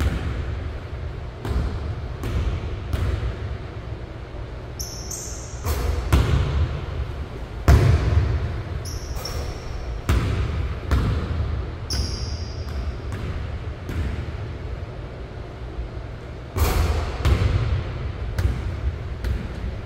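Basketball bouncing on a hardwood gym floor in irregular dribbles and bounces that echo in the large hall, with a few short high squeaks from sneakers on the court.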